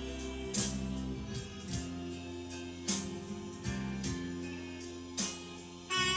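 Instrumental background music: sustained low notes with soft percussive hits about once a second, swelling louder with a fuller, higher-pitched passage near the end.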